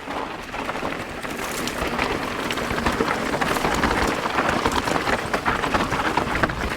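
Ibis Ripmo mountain bike riding over rough, rocky trail: tyres crunching on rock and gravel, with a dense, continuous patter of small knocks and rattles from the bike.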